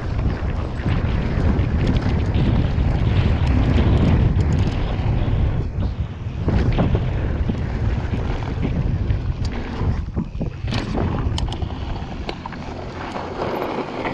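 Wind rushing over the camera microphone while a mountain bike descends a dirt trail at speed, with tyre noise and scattered rattles and knocks from the bike over rough ground.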